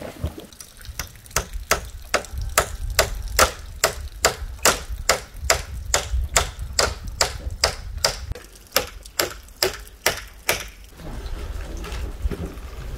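Hammer driving nails into a wooden batten on a post: an even run of sharp blows, about two to three a second, stopping near the end.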